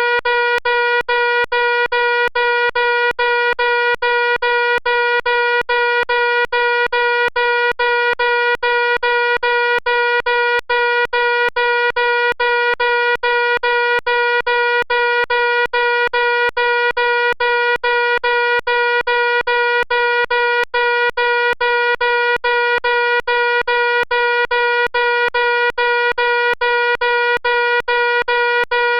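Electronic fire alarm sounding: a loud, buzzy tone held on one pitch and chopped by brief gaps into a fast, even pulse that never changes.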